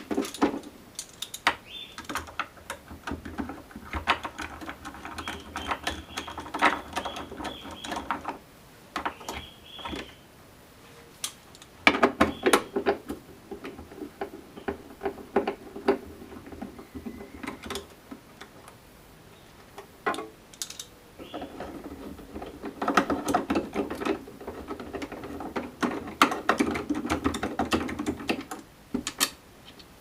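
A screwdriver undoing screws in the plastic water-tank compartment of a Philips espresso machine, with hard plastic parts clicking, scraping and rattling as they are worked loose. The sound comes as three long spells of rapid clicking with short lulls between them.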